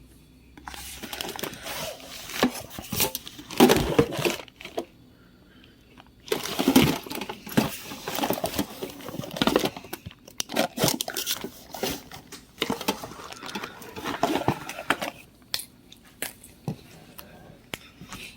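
Toiletries and shower items being handled and set out: crinkly rustling with many small clicks and knocks. The handling comes in two busy stretches with a short pause between them, then thins to scattered clicks near the end.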